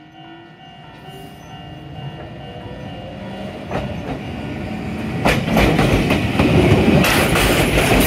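Toyama Chiho Railway 10030-series electric train approaching and passing close by, growing steadily louder. Its wheels clack over rail joints from about four seconds in.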